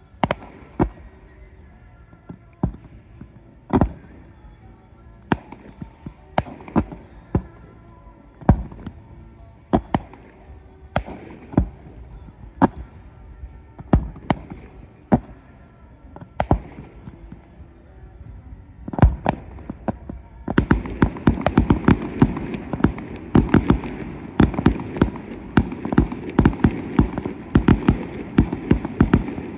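Fireworks display: single sharp bangs of shells bursting about once a second, then, about twenty seconds in, a dense rapid barrage of many quick bangs and crackles.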